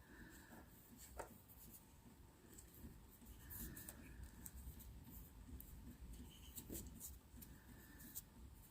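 Faint scratching and scattered light clicks of small hard objects being handled and rubbed.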